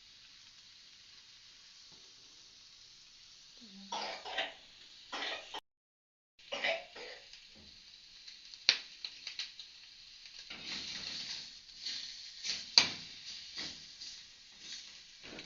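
Bacon frying in a pan: a faint hiss, then a few short noisy bursts about four seconds in, one like a throat being cleared, followed by clinks and scrapes of a utensil on the pan and a steady sizzle from about ten seconds in.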